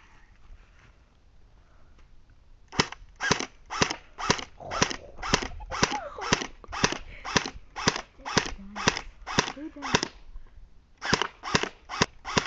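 516 fps airsoft gun firing a steady string of sharp single shots, about two a second, starting about three seconds in, with a brief pause near the end before firing resumes.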